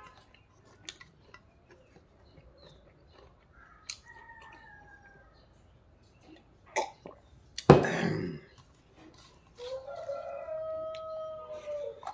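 A rooster crows in the background, one long held call from about ten seconds in, after a shorter falling call about four seconds in. A single loud knock comes just before eight seconds.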